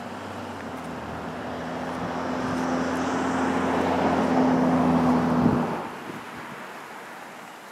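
A motor vehicle passing by: a steady engine hum that grows louder for about five seconds, then drops away quickly.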